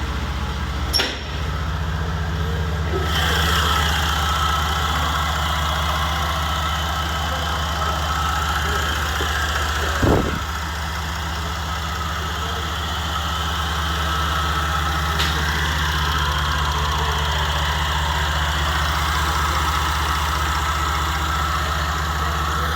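Engine idling steadily, with a click about a second in and a short knock about ten seconds in.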